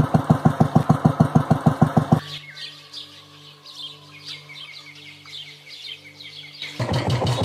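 Royal Enfield single-cylinder motorcycle engine thumping at a steady beat of about nine a second, cutting off suddenly after about two seconds. Birds then chirp over a low hum, and a louder rumble starts near the end.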